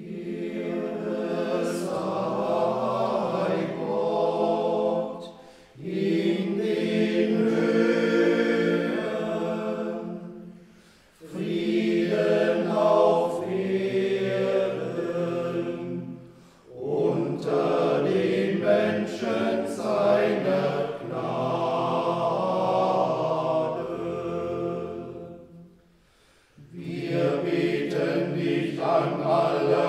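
Small monastery choir singing an unaccompanied chant in long phrases, each broken off by a short pause for breath.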